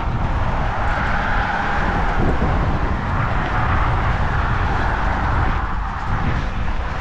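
Wind buffeting the microphone with a steady rumble, over the hiss of traffic passing on the neighbouring highway bridge.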